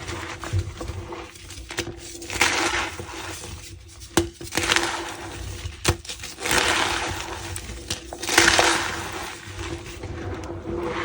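Blocks of reformed gym chalk being crushed and crumbled, squeaking as they give way. They come in four bursts about two seconds apart, with a few sharp snaps between them.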